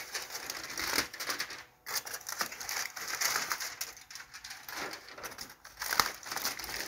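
Aluminium foil crinkling as it is peeled back off a disposable foil pan: irregular crackling with a brief pause a little under two seconds in.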